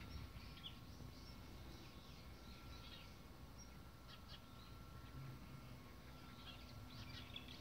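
Faint bird chirps, short and scattered, a few near the start, in the middle and near the end, over a quiet low background rumble.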